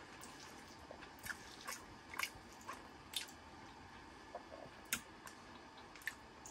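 Someone eating chili con carne from a camp bowl: a spoon clicking and scraping against the bowl in scattered short, sharp clicks, with faint chewing.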